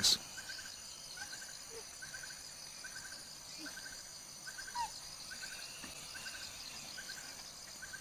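Forest ambience: a steady high insect drone, with a small three-pulse chirp repeating a little more than once a second and a single short falling bird note about halfway through.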